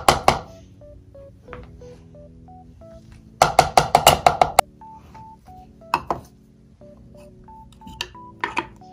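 Clear plastic mini-chopper bowl knocked about ten times in quick succession, over about a second, to shake chopped raw chicken out onto a cutting board, with a few single knocks of the bowl being handled before and after. Soft background music of short plucked notes runs underneath.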